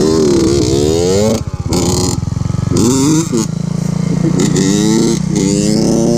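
Small motorcycle engine revving up under hard acceleration, rising in pitch. The throttle is cut briefly after about a second, then the engine pulls again and holds a high, steady rev.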